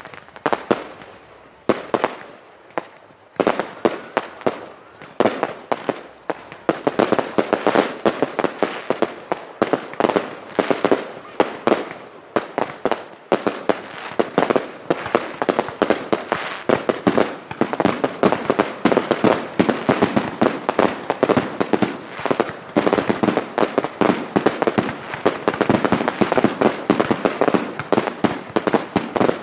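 Fireworks display: a few scattered bangs at first, then from about four seconds in a dense, rapid barrage of bangs that keeps going.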